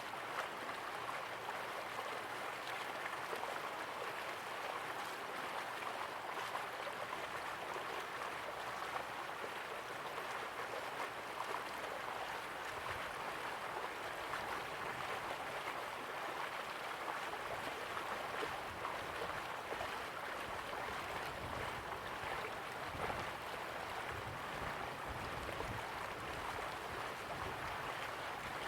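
Steady rush of a slowly flowing river, an even water noise with no separate splashes. Some low rumble comes in about two-thirds of the way through.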